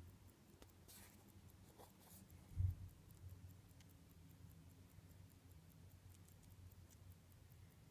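Faint, quick, even ticking of a 1940s Longines Curvex watch's 17-jewel manual-wind movement held close to the microphone, with soft handling rustle from the fingers and one dull bump about two and a half seconds in.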